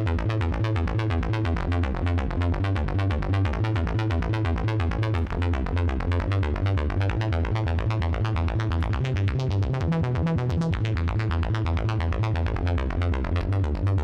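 Capsule software-synth preset 'Automata' played from a MIDI keyboard: a dense electronic pattern of fast, even pulses over a strong pulsing bass, starting abruptly.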